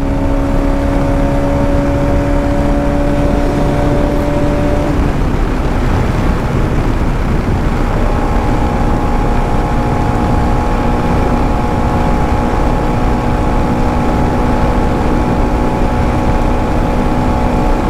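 Motorcycle engine running at steady cruising speed, with heavy wind rush on the microphone. The engine's steady hum drops away about five seconds in and settles again a few seconds later at a slightly lower pitch.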